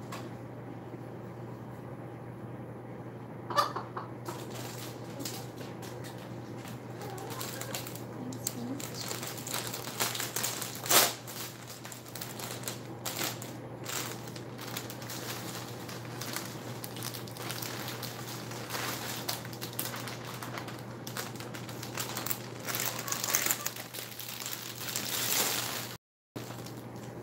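Silkie bantam chickens scratching and pecking in wood-shaving bedding and leafy greens: scattered rustles and light clicks over a steady low hum, with a louder rustle near the middle.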